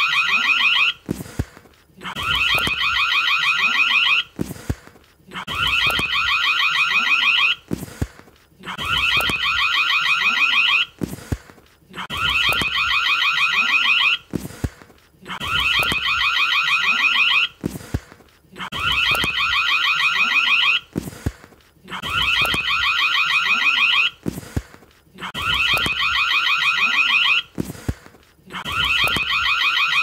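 Indoor doorbell ringing over and over: about two seconds of rapid trilling ring, then a pause of about a second, ten times in a row.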